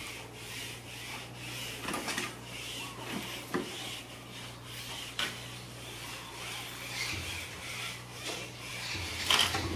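Scratching and scraping on wood and brick, with a few sharp knocks, as a baby monkey and a kitten clamber over wooden planks. A low steady hum runs underneath.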